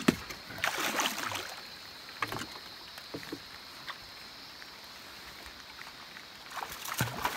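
A hooked giant snakehead splashing in the water at the side of a small boat: a burst of splashing about a second in, then quieter water, and more splashing near the end as a hand reaches into the water to grab the fish.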